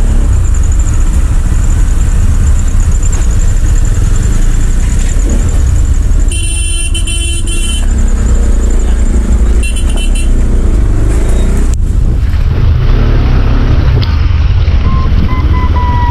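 Road traffic in a jam: a steady low rumble of engines, a vehicle horn blasting for over a second about six seconds in, and a shorter honk around ten seconds. Near the end a siren starts, its tone falling slowly.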